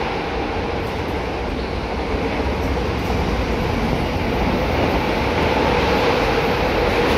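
Renfe AVE high-speed train, two coupled units, running past the platform: a steady rushing rail noise with a constant hum under it.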